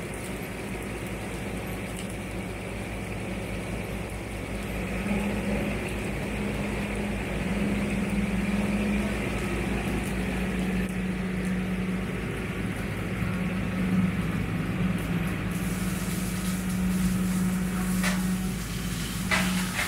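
Massey Ferguson 4707 tractor's diesel engine running under load while its front-mounted Baumalight CP572 brush cutter spins and chews through brush, giving a steady drone. A few sharp knocks sound near the end.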